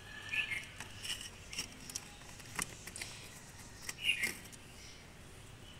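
Light clicks and scrapes of hands handling insulated wires and fitting them to small metal terminals, with the loudest pair of clicks about half a second and four seconds in.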